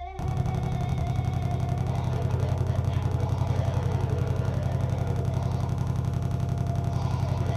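Live electronic noise music: a dense low drone with a fast pulsing throb, under grainy buzzing noise in the upper range.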